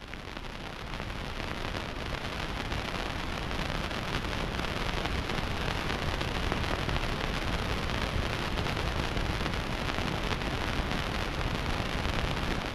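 Steady, even rushing noise, like heavy rain or white noise, that cuts in and cuts out abruptly.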